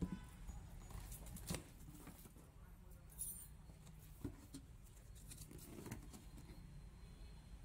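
Faint handling of a cardboard printer box and its paper and plastic packing: flaps and sheets rustling, with a few soft knocks.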